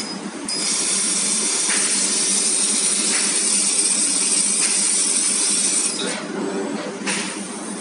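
GWEIKE 2000 W fiber laser tube cutter cutting 3 mm carbon steel round tube: the assist gas blowing through the cutting nozzle makes a loud, steady hiss. The hiss starts about half a second in and cuts off about six seconds in as the cut ends, then returns briefly near the end, over the machine's steady hum.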